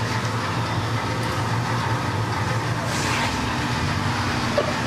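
Steady mechanical hum with a constant hiss, and a brief louder rush of noise about three seconds in.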